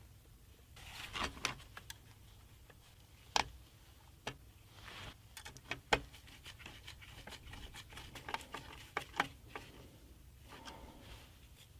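Handling sounds of a Hyte THICC Q60 CPU cooler being mounted on a motherboard: scattered small clicks, taps and rustles of plastic and metal parts, with a few sharper knocks, over a low steady hum.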